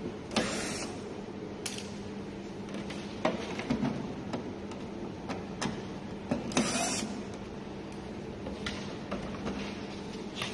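Parts and tools being handled during disassembly: scattered sharp clicks and short scraping rasps over a steady low hum.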